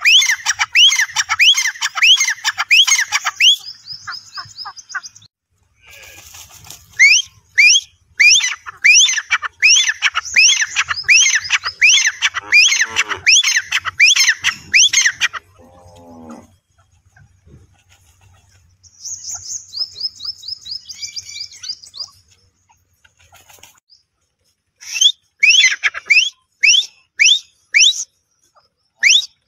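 Gray francolin calling: a loud series of rising whistled notes, about two to three a second, in several bouts with pauses between. About twenty seconds in there is a quicker run of short falling notes.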